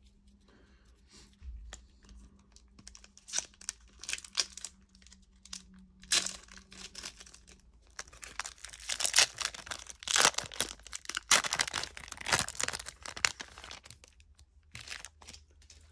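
Foil wrapper of a trading-card pack being torn open and crinkled by hand: a quick run of sharp crinkling crackles that starts a few seconds in and is loudest in the second half.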